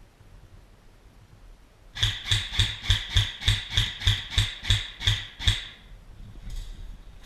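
Airsoft electric rifle firing a quick string of about a dozen semi-automatic shots, roughly three a second, each a sharp crack with a thump, starting about two seconds in and stopping after about three and a half seconds.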